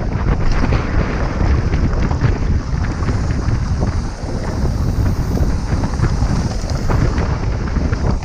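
Wind buffeting the microphone over the rumble and rattle of a Trek Remedy full-suspension mountain bike riding down a dirt and gravel trail, with many small clicks and knocks from the tyres and bike over rough ground.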